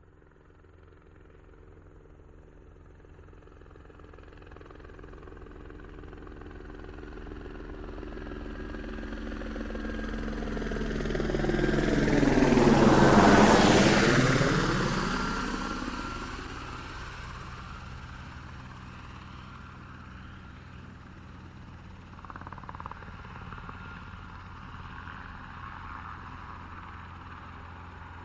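A helicopter approaches from a distance, growing steadily louder until it passes overhead about halfway through, its tone sweeping as it goes by. It then recedes to a steady, distant drone.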